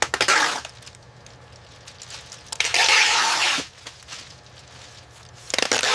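Foil insulation sheeting crinkling and tearing as it is handled and taped, in three crackly bursts: a short one at the start, a longer one about two and a half seconds in, and a short one near the end.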